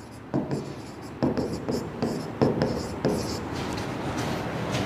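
Pen writing on the glass of an interactive smartboard: a series of short taps and scratches as each letter is stroked out.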